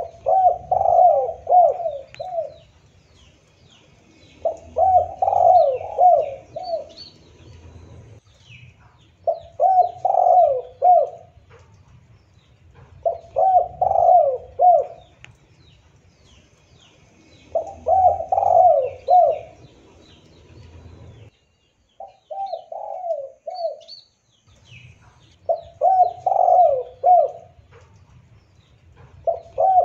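Spotted dove cooing: a rhythmic phrase of several coos, repeated about every four seconds, with faint chirps of small birds behind it. The sound cuts out for a moment about two-thirds of the way through.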